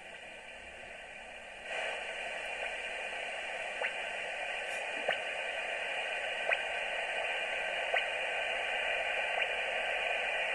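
Kenwood TS-530S HF transceiver's receiver giving out band noise and static from its speaker with no station heard, on the 20-metre (14 MHz) band through a poor indoor antenna. The hiss gets louder a couple of seconds in, with faint clicks about every second and a half.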